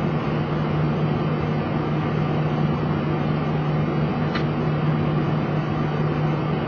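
Steady cockpit noise of a Boeing 737 taxiing on idling engines: an even rushing hum with a strong, constant low drone underneath. A faint short tick about four seconds in.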